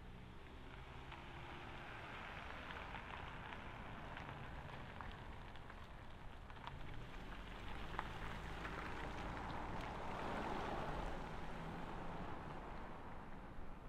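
Cars driving past on a town street: a hiss of tyres on the road that swells about two seconds in and again, louder, in the second half, over a low engine hum.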